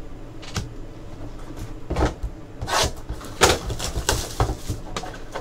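Trading cards and cardboard card boxes being handled on a tabletop: a string of short rustles, slides and taps, the loudest about three and a half seconds in.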